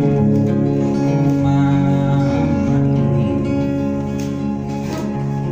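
Acoustic guitar played live, held chords ringing and changing every second or so.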